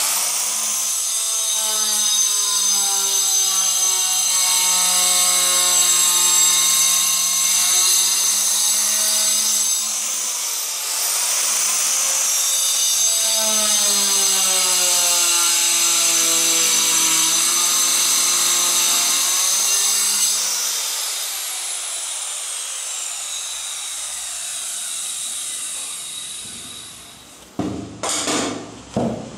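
Handheld electric tile cutter with a diamond saw blade cutting through a floor tile: the motor's whine sags in pitch as the blade bites, recovers briefly about ten seconds in, then sags again through a second stretch of cutting. After about twenty seconds the whine fades away, and a few sharp knocks come near the end.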